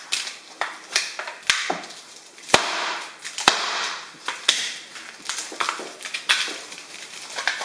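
Irregular sharp knocks, about one a second, with scraping in between: a knife cutting raw chicken on a chopping board.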